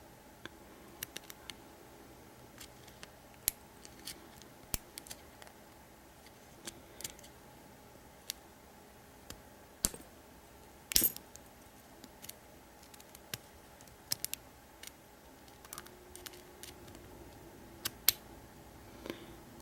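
Scattered, irregular metallic clicks and ticks of a lock pick and tension wrench working the pins of a Brinks stainless steel padlock, single-pin picking from the bottom of the keyway. A louder cluster of clicks comes about eleven seconds in, and another sharp pair near the end.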